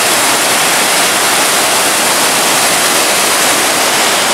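Steady rushing water of a fast-flowing creek, an even hiss with no pitch to it.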